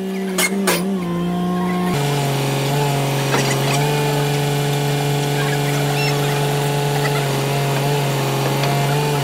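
Excavator's diesel engine running steadily, with a few short metallic knocks on top.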